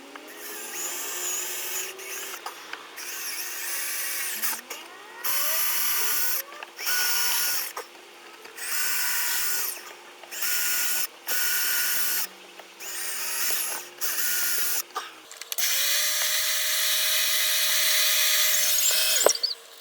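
Power drill boring pilot holes into soft wood for screws, running in a string of short bursts of about a second each, then one longer run of a few seconds near the end.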